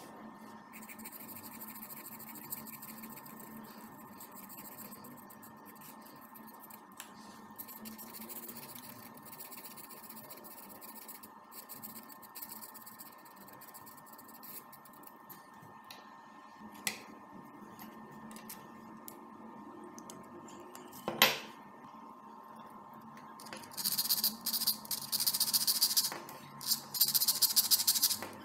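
Marker pen scratching faintly across a steel knife blank as lines are drawn on it. One sharp click comes about three-quarters through, then a run of louder scraping strokes near the end.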